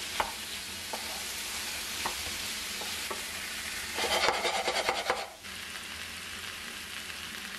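Chicken curry sizzling in a frying pan while a wooden spoon stirs it, with a few knocks of the spoon against the pan. About four seconds in comes a second of louder, brisker stirring and scraping, then steady sizzling again.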